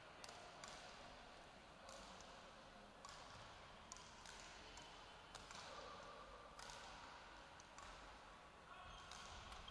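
Faint, sharp knocks of badminton doubles play in a large sports hall, roughly one every second or so: racquets striking the shuttlecock and players' feet on the court floor, over a quiet hall background.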